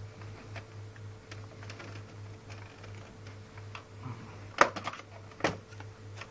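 Plastic back casing of a Philips LCD monitor being pried open with a screwdriver: light ticking and scraping of tool on plastic, then two sharp snaps about a second apart near the end as the casing's clips let go.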